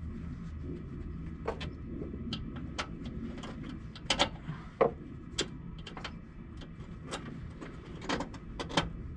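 Irregular sharp clicks and light metallic clinks of hand tools, needle-nose pliers working a hose clamp on a hydraulic line fitting, a dozen or more scattered through, over a low steady hum.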